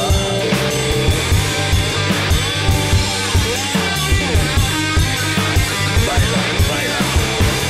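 Blues-rock band playing an instrumental passage: drum kit keeping a steady beat under bass and guitar, with a lead line that bends up and down in pitch.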